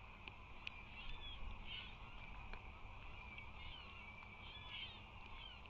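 Faint, scattered bird calls: short, high chirps and slurred whistles, several in quick groups, over a steady low rumble, with a few sharp ticks.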